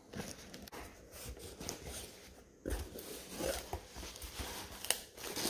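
A cardboard shipping box being opened by hand and its contents handled: irregular scraping and rustling of cardboard and wrapping, busier in the second half, with one sharp click near the end.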